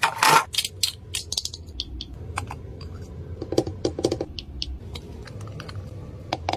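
Irregular sharp clicks and taps of small plastic cosmetic containers and their clear plastic box being handled, opened and uncapped, with a denser rustle of handling in the first half second.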